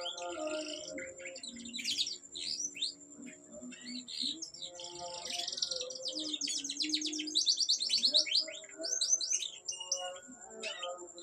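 Domestic canary singing a long, varied song of chirps and fast rolling trills, densest and loudest in the middle.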